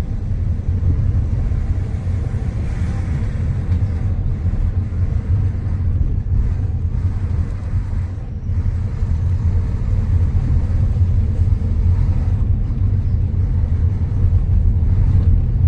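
Steady low rumble of a car on the move: engine and tyre noise heard from inside the cabin.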